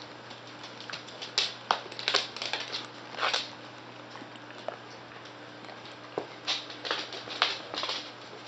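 West Highland white terrier puppies scampering and tussling on a hardwood floor: claws tapping and scuffling in scattered quick bursts, in two busy spells about a second in and again near the end.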